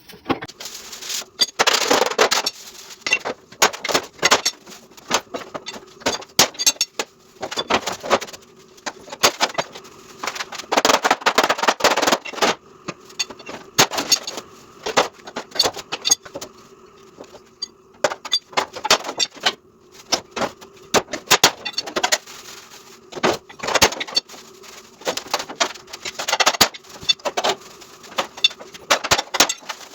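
Clusters of rapid, irregular clicks and knocks over a faint steady hum, typical of hand work on a car in a workshop.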